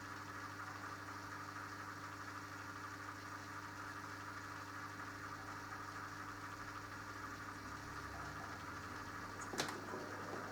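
Minicolo mini washing machine running mid-cycle on its 40 °C delicate programme, a steady low hum, with a single sharp click near the end.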